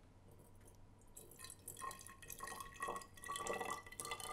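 Vinegar poured from a plastic jug into a narrow-necked glass bottle, starting about a second in: faint splashing with a thin tone that slowly rises in pitch as the bottle fills.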